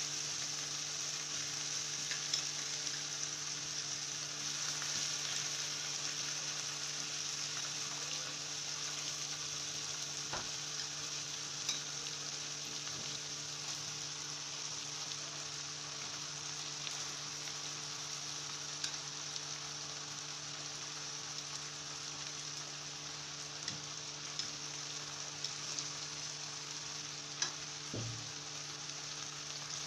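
Chicken pieces frying with softened onions in oil in a frying pan: a steady sizzle, with a few light clicks of tongs against the pan and a faint steady hum underneath.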